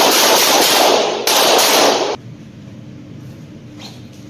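A rapid burst of handgun fire lasting about two seconds, with a brief dip about a second in.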